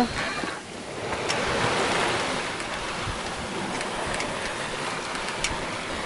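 Steady wash of choppy sea water and wind around a sailboat under way, with a few faint ticks.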